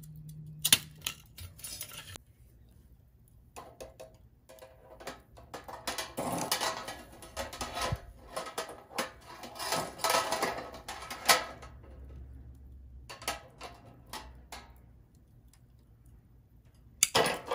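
Metal tongs clinking and scraping on a wire grill grate over a small tin charcoal stove as chicken and green peppers are turned. The clicks are scattered, with a denser run of clatter in the middle.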